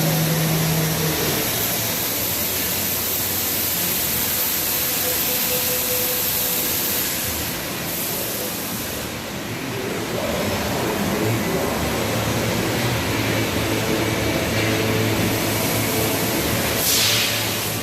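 Bystronic Bystar 3015 CNC laser cutter running: a steady machine hiss and hum. The high hiss eases off about halfway through, and a low hum takes over.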